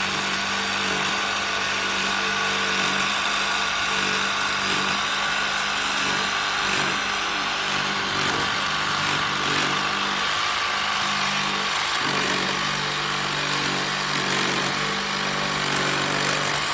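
A power tool running steadily with a constant motor hum, then stopping suddenly at the very end.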